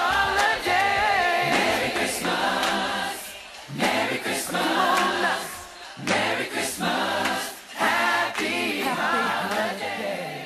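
Background music of a choir singing in phrases with short breaks, fading toward the end.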